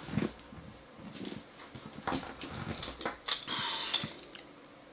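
Irregular plastic clicks and knocks from handling the LEGO Technic model and its light kit, with a short rustling hiss a little past three seconds in.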